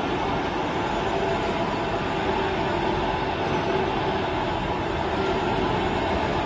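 Steady machinery din: a continuous even noise with no distinct knocks or changes.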